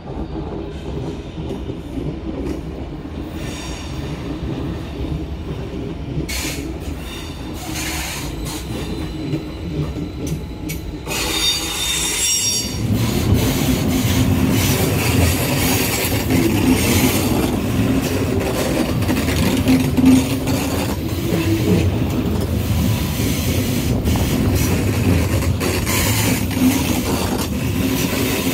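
CFL Stadler KISS double-deck electric train running on station tracks: steady wheel-and-rail rumble with a high wheel squeal a little before the middle. It then gets louder and heavier, with a steady low hum, as the train moves off close by.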